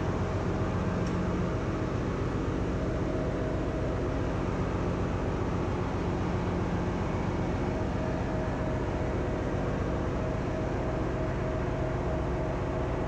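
Steady drone of a ship's engine-room machinery: a low hum with a few steady tones over even noise, holding the same level throughout.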